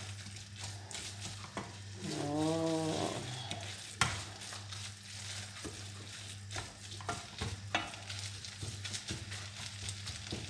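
Wooden spoon stirring shredded chicken and tomato in a stainless-steel saucepan over a gas flame: soft scrapes and light sizzling, with a sharp knock about four seconds in. A short wordless voice-like tone rises and falls between two and three seconds in.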